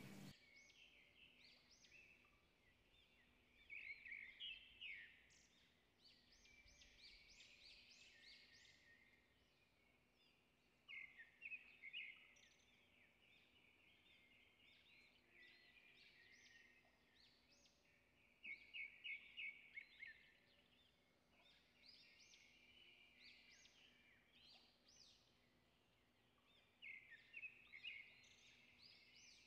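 Faint bird chirping in short bursts of high calls every few seconds, with near silence between them.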